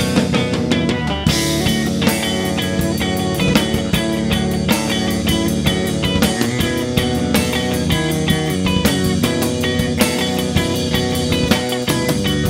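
Instrumental progressive rock played by a three-piece band: Stratocaster-style electric guitar, electric bass and drum kit, with a fast, even drum pattern. The band comes in fuller and brighter about a second in.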